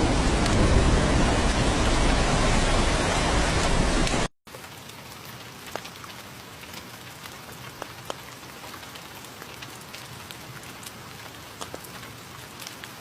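Heavy rain falling in a steady downpour, which cuts off abruptly about four seconds in; after a moment's silence a much lighter rain follows, with individual drops ticking distinctly over a soft hiss.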